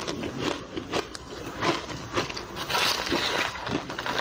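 Crushed ice crunching as it is chewed: a dense run of crisp crackles and crunches, thickest about three seconds in.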